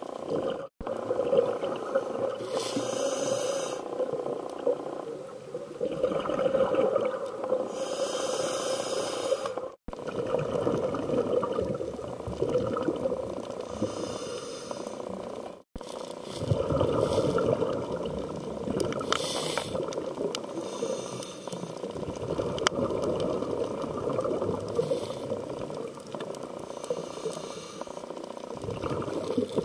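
Scuba regulator breathing heard through a camera's underwater housing. A hiss comes with each inhalation, roughly every five to six seconds, and rumbling bubble noise follows each exhalation. The sound drops out to silence three times for an instant.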